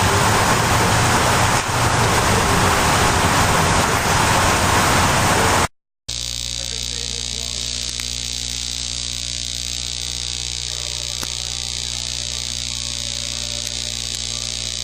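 Loud, steady hiss of noise that cuts off abruptly about six seconds in. After a brief dead silence, a quieter steady hum with several constant tones follows.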